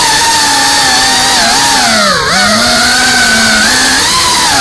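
FPV freestyle drone's brushless motors whining at a steady high pitch, dipping briefly about halfway through as the throttle eases, then rising again.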